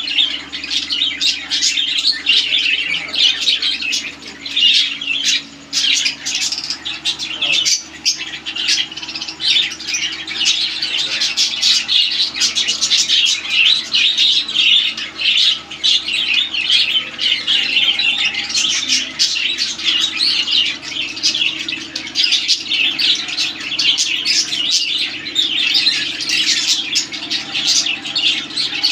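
A flock of caged budgerigars chattering without a break: many quick, overlapping chirps and warbles.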